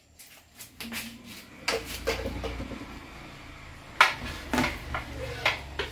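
Kitchenware knocking and clinking as the blender jar and cake pan are handled. About five separate knocks, the loudest about four seconds in, over a low steady hum.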